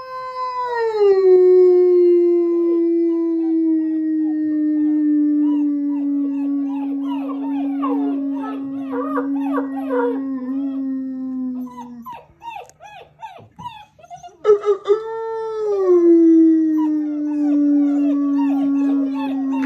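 A person howls in two long notes, each sliding down and then held steady, with a break for breath about twelve seconds in. Black German shepherd puppies join in with higher, wavering little howls and yips over the first note.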